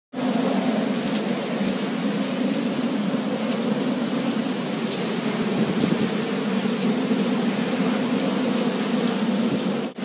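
Typhoon wind and heavy driving rain: a steady, unbroken rush of wind and rain.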